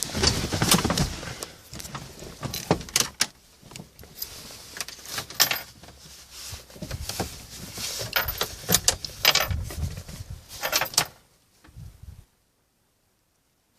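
A bunch of keys jangling, with irregular clicks and rattles of handling, as the van is readied for its cold start. The sound cuts to dead silence about a second and a half before the end.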